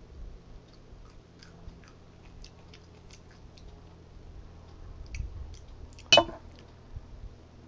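Someone chewing jalapeños close to the microphone: soft, scattered wet mouth clicks. About six seconds in there is a single loud bump.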